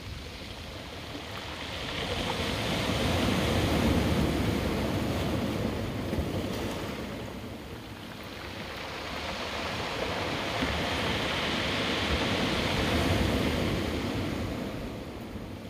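Ocean surf breaking and washing against a rocky shoreline, rising and falling twice.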